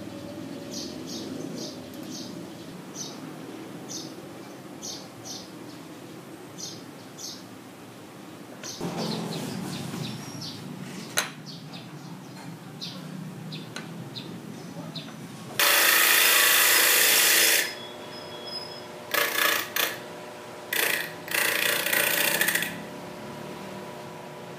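Hand sanding a small wooden piece with folded sandpaper, short rasping strokes about one to two a second. Then a homemade disc sander starts running with a steady motor hum, and wood is pressed against the spinning disc in a loud grind of about two seconds, followed by several shorter grinds.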